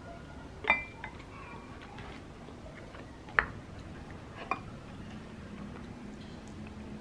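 Wooden spoon knocking against a ceramic bowl as a rice bowl is stirred and mixed: three sharp clinks, about a second in, at about three and a half seconds and at about four and a half seconds, with a few fainter taps between.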